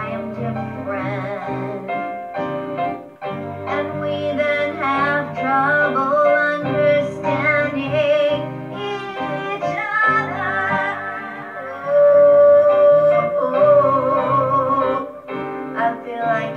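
A song: a voice sings a melody with strong vibrato over instrumental accompaniment, holding one long loud note about three-quarters of the way through.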